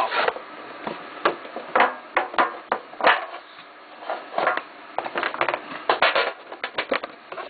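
Hands handling and working open a hockey card tin: irregular rustling, scraping and clicking.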